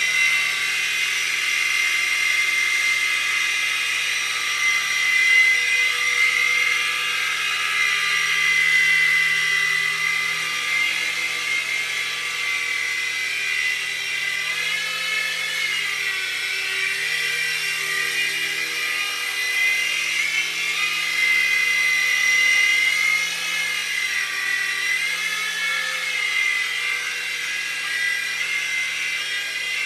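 U809 micro RC coaxial helicopter in flight: its small electric motors and twin rotors make a steady high-pitched whine, the pitch wavering a few times. The motors' pinion gears, freshly super-glued to the shafts, are holding, and it flies properly.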